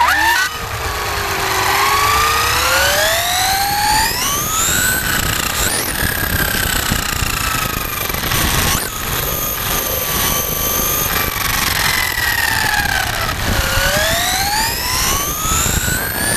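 Onboard sound of a 1/5-scale FG Audi RS5 4WD RC car running electric on 8S LiPo power: the motor and drivetrain whine rises in pitch as the car accelerates, over rough road noise from the tyres on the pavement. Most of the way through, the whine drops sharply as the car slows, then climbs again as it speeds back up.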